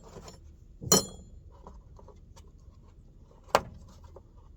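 Steel wrench tools being handled and tried for size: two sharp metal clinks, the first about a second in ringing briefly, the second about three and a half seconds in, with light tool taps between.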